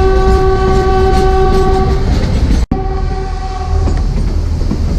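Diesel locomotive horn sounding one long steady note, briefly broken in the middle and stopping about four seconds in, over the continuous rumble and clatter of a narrow gauge train running on the track.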